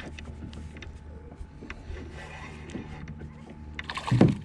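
Spinning reel being cranked, a steady whir, as a hooked fish is reeled in. About four seconds in, a short, loud splash as the fish, a grunt, thrashes at the surface beside the kayak.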